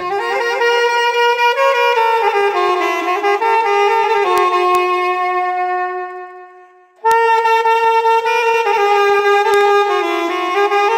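Solo saxophone playing a slow melody of held notes. A long note fades away about six seconds in, and the melody starts again abruptly a second later.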